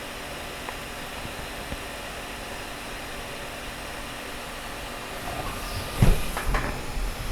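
A steady hiss, then a floppy disk drive starting up about five seconds in: a low motor rumble with a few sharp clicks and knocks of the head as the program is read from disk.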